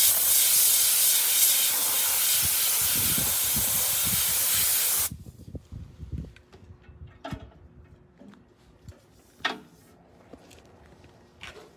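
Compressed-air blow gun blasting air over rusty diamond-plate steel to clear wire-wheel dust before rust converter goes on: a loud steady hiss that cuts off sharply about five seconds in. A few faint taps follow.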